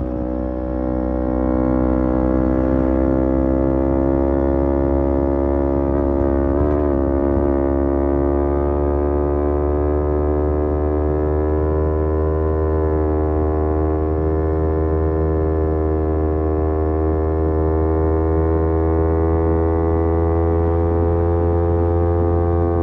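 Kawasaki Z250's parallel-twin engine, breathing through an aftermarket SeaPro muffler, running at a steady cruise. The exhaust note holds an even pitch, with a brief wobble about seven seconds in.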